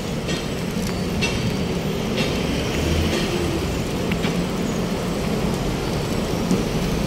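Steady city road traffic noise: vehicle engines and tyres passing on a busy street.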